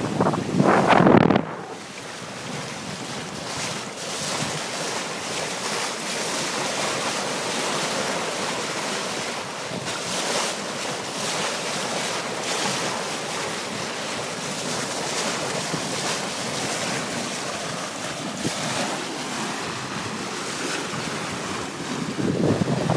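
Water rushing and splashing along a sailboat's hull as it sails under way, a steady hiss of spray and bow wave. Wind buffets the microphone loudly for about the first second and a half.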